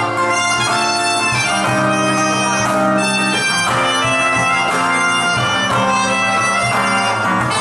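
Soprano saxophone playing a melody of held notes, with acoustic guitar accompanying.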